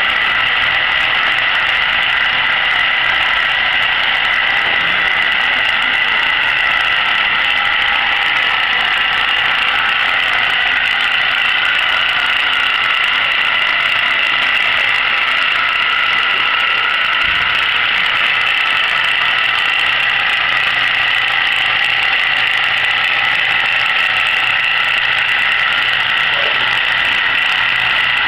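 Motor-driven rotisserie spit drive running steadily, a constant mechanical hum with a high whine over it.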